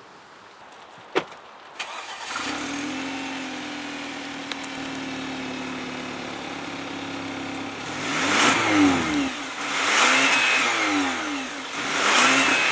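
Exhaust of a 2012 Kia Optima SX with a 2.0-litre turbocharged direct-injection four-cylinder: a click, then the engine starts, settles into a steady idle, and is blipped three times, each rev rising and falling back to idle.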